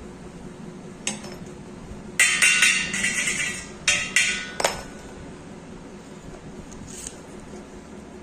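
Steel pieces clinking and knocking against one another: a single clink about a second in, a quick run of clinks for about a second, then a few separate clinks.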